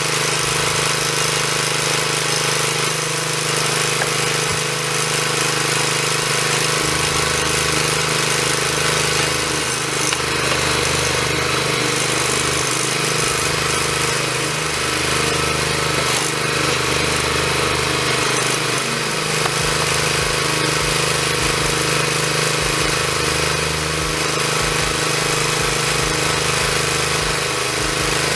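A machine's engine running steadily with a constant drone, its deepest rumble coming and going irregularly.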